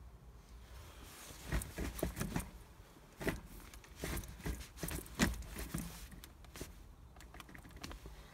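Five-speed manual gear lever of a Mazda MX-5 NB being moved through the gates with the engine off: a string of light clicks and clunks, about ten over four seconds.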